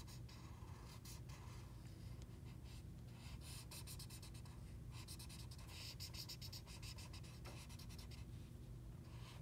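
Felt-tip marker scratching across paper in quick back-and-forth strokes while colouring in an area. An electric fan hums steadily underneath.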